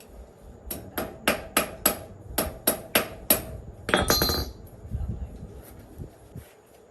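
Hammer striking metal: a quick run of about nine sharp blows, roughly three a second, followed by a brief ringing clatter.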